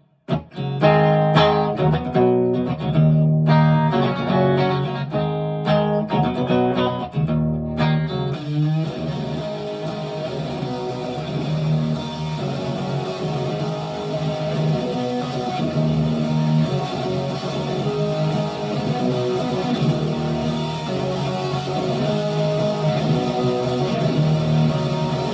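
Electric guitar played through a Boss DS-1 distortion pedal into a Blackstar tube amp. For about eight seconds it plays separate chords that ring out with short gaps, then it changes to dense, continuous distorted strumming.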